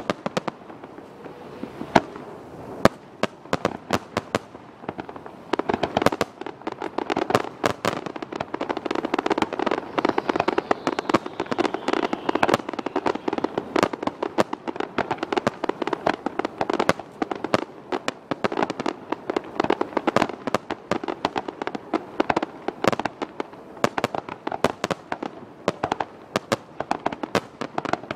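Aerial fireworks bursting: separate sharp bangs at first, then from about six seconds in a rapid, near-continuous string of reports that stays dense to the end.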